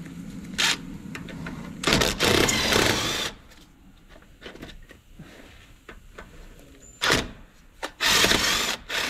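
Cordless impact wrench hammering in bursts as it breaks loose and spins out the brake caliper mounting bolts: a short burst, a longer one of over a second about two seconds in, then a brief burst and another long one near the end.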